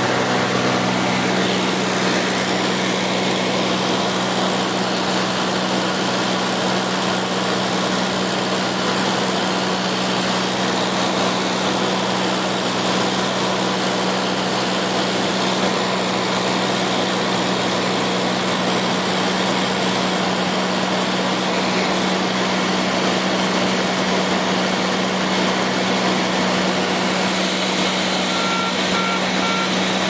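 Cabin noise of a Cessna 210 Centurion in flight: its six-cylinder piston engine and propeller running steadily at constant power, a strong even hum under a wide rushing hiss of airflow.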